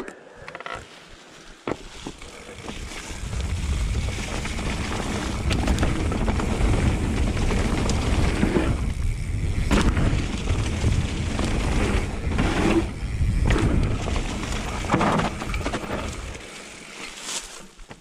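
A mountain bike riding fast down a dirt trail strewn with leaves: tyres rolling over dirt and leaves, wind rushing on the bike-mounted camera, and the bike rattling over the bumps. The noise builds about two seconds in as the bike picks up speed, dips briefly a couple of times, and falls away near the end.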